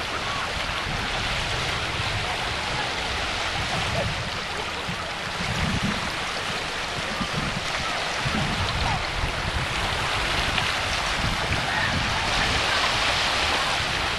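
Small lake waves lapping and washing onto a sandy shore in shallow water: a steady splashing hiss.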